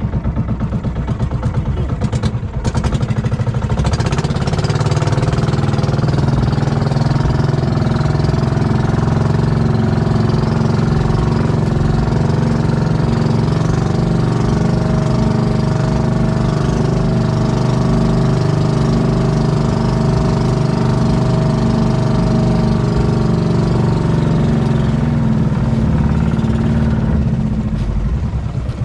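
Small engine of a wooden outrigger fishing boat running steadily under way, a loud, even drone that settles in a few seconds in and eases off near the end.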